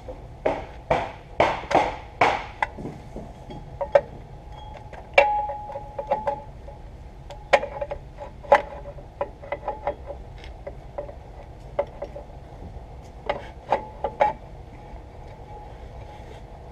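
Irregular metallic clinks and taps of a hand tool working the bolts of a South Bend clutch pressure plate on the flywheel, some strokes leaving a short metallic ring. They come in clusters, the loudest run a few strokes in quick succession early on.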